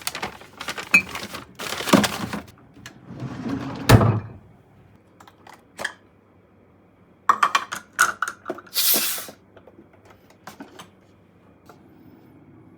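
Fridge being cleaned out: irregular clatter and knocks of containers, shelves and drawers being handled, with rustling and a loud thump about four seconds in. A burst of clicks and a short rushing rustle come near two-thirds of the way through.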